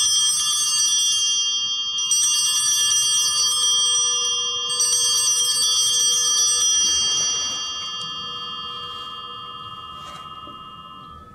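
A cluster of altar bells (Sanctus bells) is shaken in three rings about two and a half seconds apart, each a quick jangle of several bell tones. After the last ring the bells are left to ring on, fading out over several seconds. The bells mark the elevation of the chalice at the consecration.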